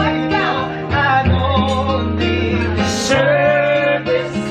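Acoustic guitar playing under voices singing a song, with long held low notes beneath.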